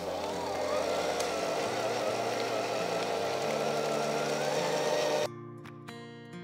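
KitchenAid electric hand mixer running with its whisk attachment, beating cream cheese and heavy cream, with a slightly wavering whine. It stops abruptly about five seconds in, leaving quieter background music.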